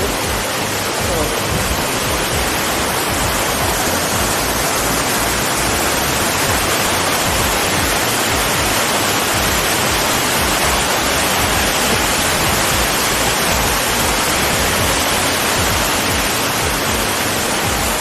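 Waterfall rushing steadily: a constant, full hiss of falling water that holds level throughout.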